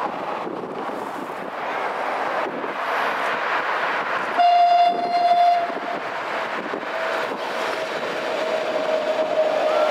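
Amsterdam M5 metro train running on its test track, with road traffic noise behind it; a little under halfway in its horn sounds loudly for about a second and a half, and a fainter steady tone then carries on, sliding slightly lower in pitch, as the train comes past.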